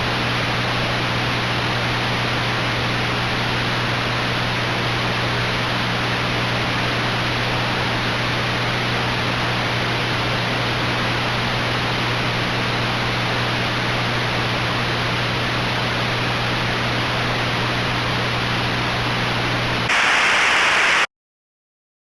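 Television static: a steady hiss with a low hum under it. Near the end it turns louder and harsher for about a second, then cuts off abruptly.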